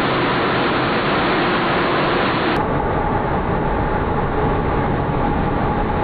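Steady roar of F-35B Lightning II jet engines running on a ship's flight deck, with a steady whine in it. The sound shifts abruptly about two and a half seconds in, where the picture cuts to another jet.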